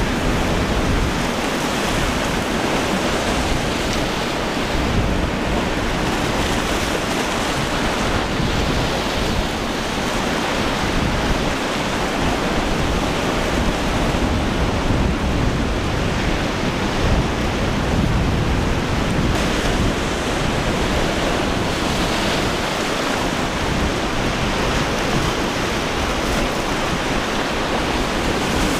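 Steady rush of breaking surf and choppy inlet waves, with wind buffeting the microphone.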